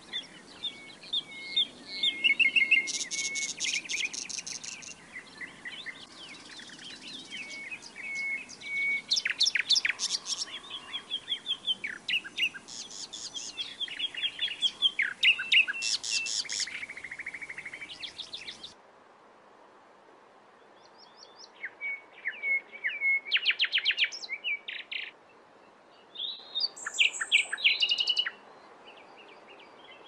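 Reed warbler singing a loud, harsh, chattering song of rapidly repeated notes and phrases, which cuts off abruptly about two-thirds of the way through. After a short quieter pause come two further separate bursts of birdsong.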